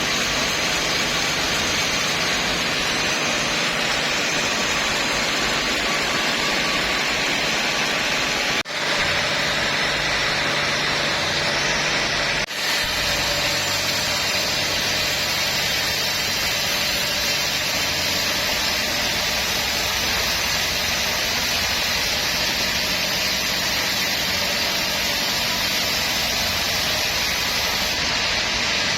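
Sawmill machinery running with a steady mechanical noise and a low hum. The sound breaks off for an instant twice, about nine and twelve and a half seconds in.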